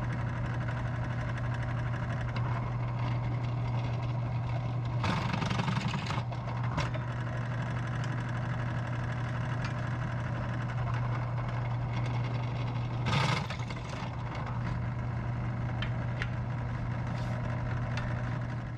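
A steady machine hum, with two brief louder noisy stretches, about five and thirteen seconds in.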